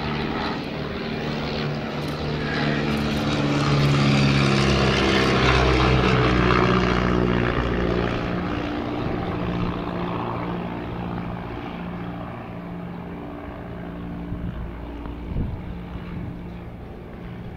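de Havilland Tiger Moth biplane's four-cylinder piston engine and propeller droning on a fly-by, swelling to its loudest about five seconds in, then slowly fading as the plane moves away.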